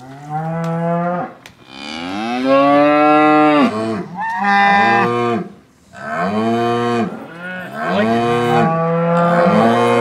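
Dairy cows mooing loudly: about five or six long calls in quick succession, each with a brief gap before the next.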